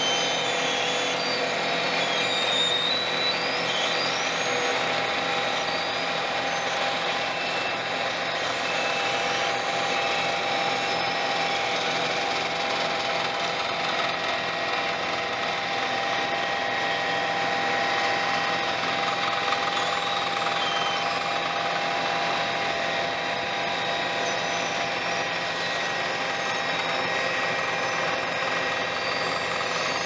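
Vögele Super 1800-3i tracked asphalt paver at work, crawling forward on its crawler tracks: a steady diesel-and-hydraulic drone with several held whining tones. A few short high squeaks come in the first few seconds.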